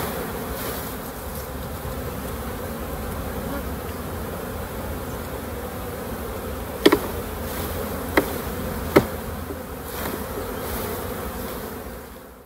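Swarm of disturbed honeybees buzzing steadily as they are shaken off old brood frames into a new brood box during a shook swarm. Three sharp knocks about seven, eight and nine seconds in come with the frames being jolted to shake the bees off; the sound fades out at the end.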